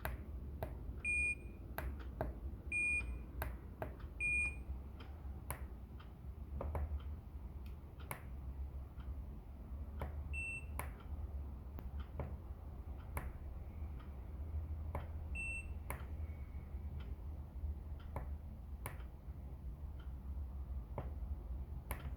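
Short electronic Morse code beeps from a Raspberry Pi bleeper as a push button is tapped, among many sharp clicks from the button. Three beeps come in the first few seconds and two more later at a slightly higher pitch, over a low steady hum.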